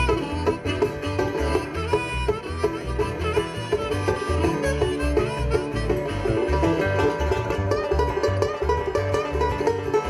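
Live bluegrass band playing: banjo picking over an acoustic guitar and an upright bass, with the bass keeping a steady beat.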